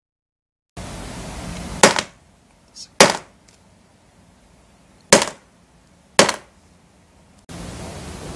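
Ball-peen hammer striking an iPhone's tempered glass screen protector on a wooden floor: four sharp, hard knocks in two pairs, after a brief silence. The glass takes the blows without shattering.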